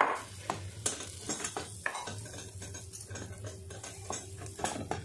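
Eggs and batter frying softly in a nonstick multi-cup egg pan over low heat, with scattered light clicks and taps of a utensil working the batter against the pan.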